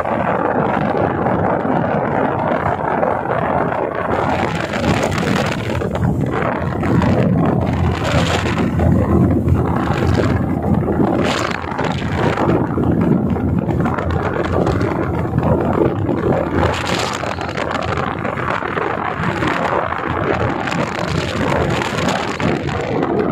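Yamaha 40 hp outboard motor driving a speed boat under way, its running blended with wind buffeting the microphone and water rushing past the hull. The engine pulls freely on a power test after its carburettor and diaphragm were cleaned.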